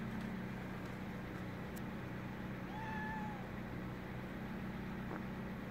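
A cat meows once, a drawn-out level call about three seconds in, over a steady low background hum.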